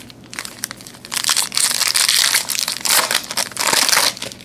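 Plastic wrapper of a trading card pack crinkling and crackling as it is torn open and handled, from about a second in until just past four seconds.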